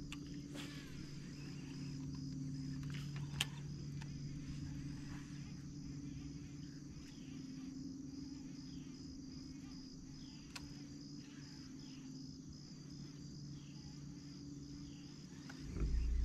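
Insects buzzing steadily, a high, evenly pulsing drone, over a low steady hum, with a few faint clicks.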